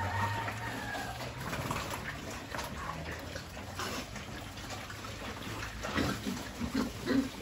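A group of pigs eating together at a trough: a steady mass of chewing and slurping, with a few short low grunts near the end.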